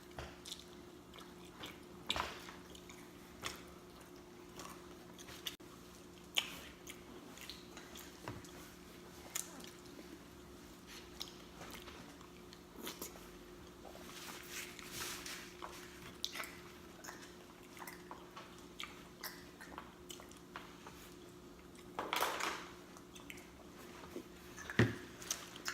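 Close-miked chewing and lip smacking of a person eating fried chicken, with scattered sharp, wet mouth clicks and a louder bite about 22 seconds in. A faint steady hum runs underneath.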